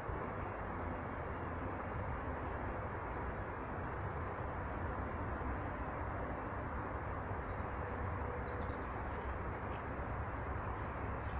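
Small birds giving short, faint, high chirps every second or two over a steady low outdoor rumble.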